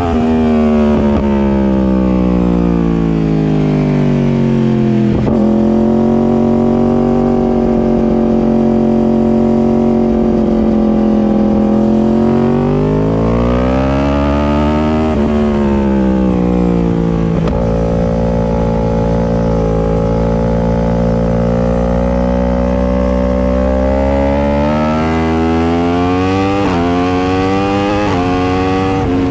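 Sport superbike engine running hard, loud throughout. Its pitch falls over the first few seconds, holds steady, swells up and back down in the middle, holds again, then climbs in several quick steps near the end.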